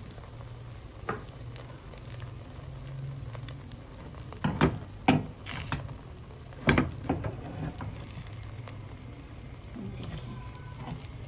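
Beaten egg frying as a flat omelette in a nonstick pan: a faint sizzle over a low steady hum, with a few sharp knocks about four to seven seconds in.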